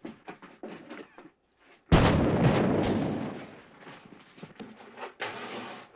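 Dynamite explosion about two seconds in: a sudden loud bang that rolls on and dies away over about a second and a half, blowing open the express car's safe. Faint scuffs and knocks come before it.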